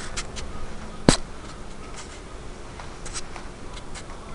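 Handling noise: a single sharp click about a second in, with a few lighter clicks and faint rubbing around it.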